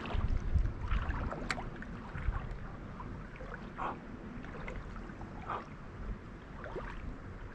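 Shallow creek water lapping and trickling, with scattered short splashy sounds and a low rumble in the first second or so.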